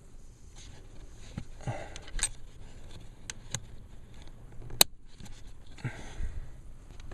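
Resistor plate's small clips snapping into place behind a car's glove box: a handful of sharp clicks, the loudest about five seconds in, with light scraping and handling noise between them.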